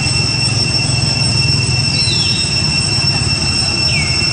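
Steady, loud, high-pitched insect buzzing, typical of a cicada chorus, with a call that falls in pitch repeating about every two seconds over a low rumble.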